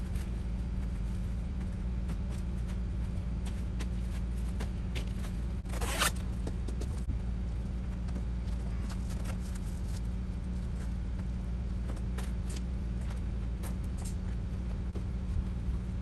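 Excavator engine running steadily, with scattered scraping and clinking from the digging work and one louder rasping scrape about six seconds in.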